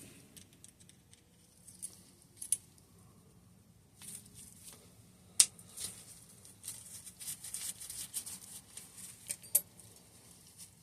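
Small tools and parts of a Hope Race Evo hydraulic brake lever being worked apart by hand: light scattered clicks and scraping, with one sharper click about five and a half seconds in.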